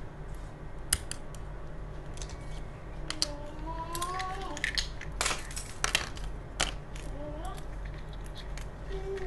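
Plastic toy doctor-kit pieces clacking as they are picked up and set down on a table: a string of sharp clicks, the loudest about five and six seconds in. A fainter wavering high call sounds in the background around three to four seconds in and again near the end.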